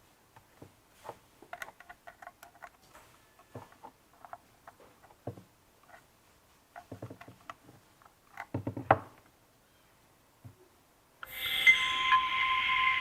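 Small clicks and rustles of a power cable and plastic connectors being handled and plugged together, with a louder run of clicks about nine seconds in. Near the end a loud electronic tone starts suddenly, holding several steady pitches at once.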